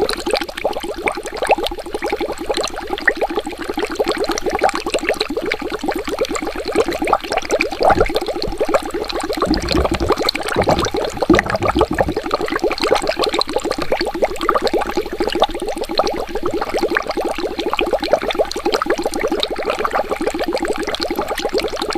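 Water bubbling continuously: a dense, rapid stream of small bubble pops, with a few deeper, low gurgles near the middle.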